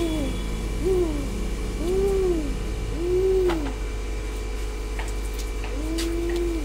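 A series of soft hooting calls, each a single tone that rises and falls and lasts about half a second, with a longer, steadier one near the end.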